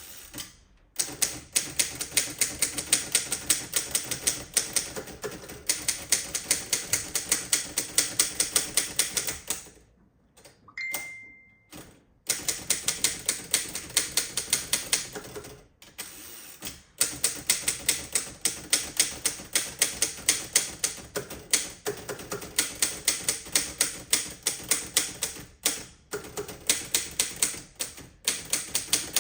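Underwood No. 5 manual typewriter being typed on in fast, steady runs of key strikes, about five or six a second, with a few short pauses. About a third of the way in, during one pause, a single ring of the line-end bell sounds briefly.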